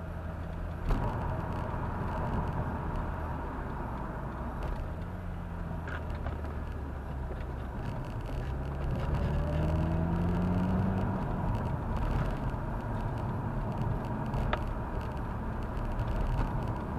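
A car's engine and tyre noise heard from inside the cabin while driving a winding country road. The engine rises in pitch about nine to eleven seconds in as the car speeds up out of a bend, over a steady low rumble, with a single click about a second in.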